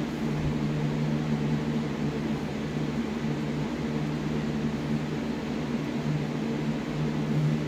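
A steady low machine hum with a faint hiss behind it.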